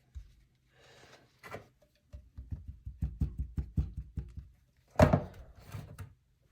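Rhythmic scrubbing strokes, about four a second, of a sponge rubbing a knife blade with Bar Keepers Friend powder, each stroke bumping dully. A louder sharp knock comes about five seconds in.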